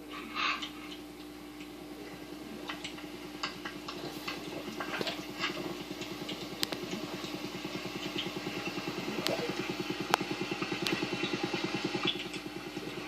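A motor running steadily with a fast, even pulse, with scattered sharp clicks and taps over it.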